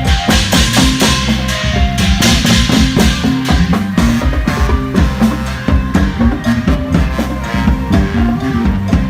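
Thai brass band (trae wong) playing loud, upbeat music, led here by a drum kit beating a fast rhythm over low bass notes.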